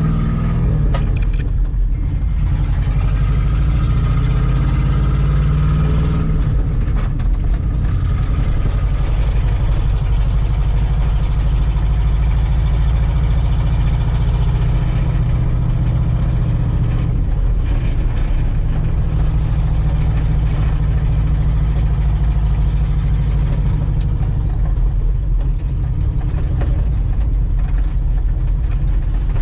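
The 5.8-litre V8 of a 1989 Ford F250 running loud with no exhaust system, heard from inside the cab while the truck drives. The engine note climbs over the first few seconds, drops about six seconds in, then holds steady.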